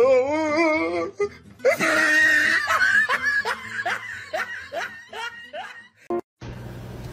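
A person laughing hard: a warbling laugh first, then a string of short rising 'ha' bursts about two a second. Near the end it cuts off suddenly into a steady hiss with a low hum.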